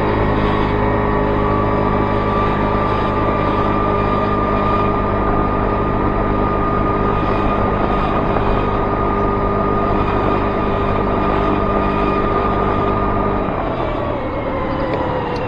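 Honda Vision 50cc moped's single-cylinder engine running at a steady cruising pitch under wind and road noise. About thirteen seconds in, the engine note drops as the throttle is eased off, then starts to climb again right at the end.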